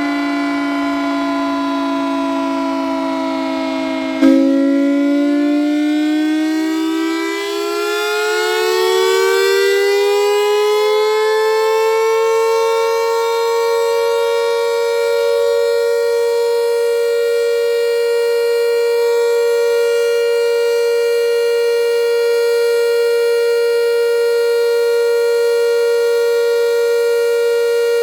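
Civil defense siren sounding a steady tone that sags slightly in pitch. About four seconds in there is a sharp click, then the pitch climbs over about eight seconds and holds steady at a higher note.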